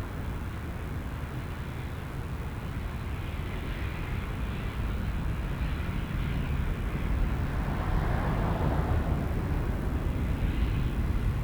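Jet engine noise from a departing Boeing 777-300ER's GE90-115B engines: a steady low rumble with a hiss above it, slowly growing louder.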